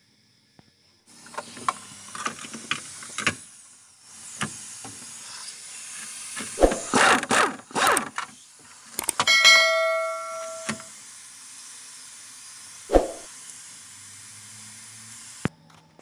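Pneumatic impact wrench working a bolt on the steering shaft at the floor: a steady air hiss, with a short run of sharp hammering blows about halfway through, then a brief high ringing tone.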